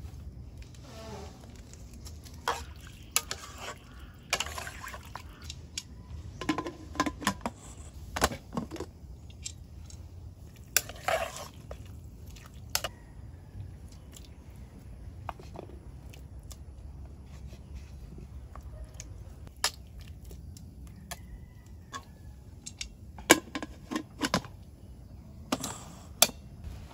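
Cooking sounds: pots, a lid and utensils clinking and knocking irregularly, some strikes ringing briefly, over a steady low hum.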